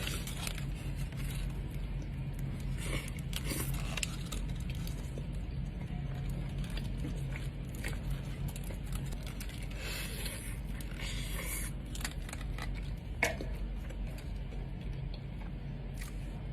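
Burrito wrapper crinkling and rustling as it is handled during eating, in short bursts with a few sharper clicks, over a steady low hum.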